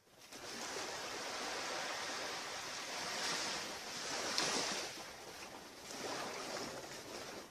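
Surf washing onto a beach: a steady rush of waves that swells and eases, loudest about four and a half seconds in.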